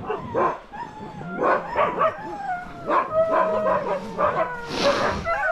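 A pack of sled huskies barking and yipping, with long wavering whines sliding up and down through the middle. A short rush of noise comes near the end.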